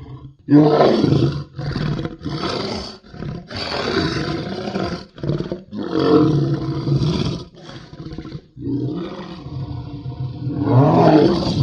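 Werewolf creature sound effect: a run of raspy roars and growls, one after another with short breaks. The loudest come about half a second in and near the end.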